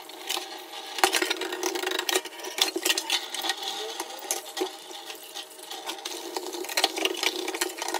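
Tap water running steadily into a stainless steel sink while dishes are washed by hand, with brush scrubbing and frequent irregular clinks and knocks of dishes and a metal pan.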